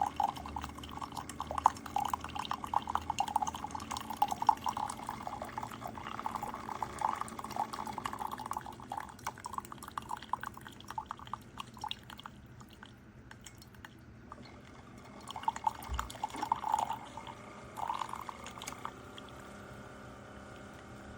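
Keurig K-Slim single-serve coffee maker dispensing coffee into a cup: liquid splashing and trickling into the cup, thinning out after about twelve seconds, then a few last spurts before it stops.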